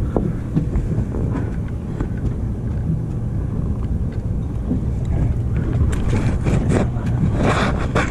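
Sportfishing boat's engine running with a steady low rumble, with wind on the microphone and a louder hiss in the last two seconds.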